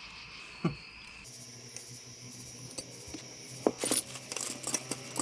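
Small metal parts clinking and jingling as they are handled, in a cluster of sharp clinks about two-thirds of the way through. A short falling squeak comes under a second in.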